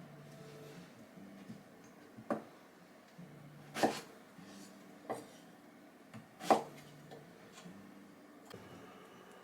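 Kitchen knife coming down on a cutting board in slow, separate cuts: about four clear knocks a second or more apart, with a few fainter taps between.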